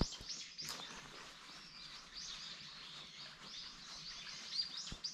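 Small birds chirping, a busy run of short, high, arching calls, with a few soft clicks near the start and near the end.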